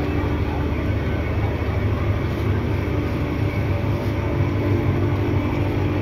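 Large engine running steadily, a low rumble with a constant hum.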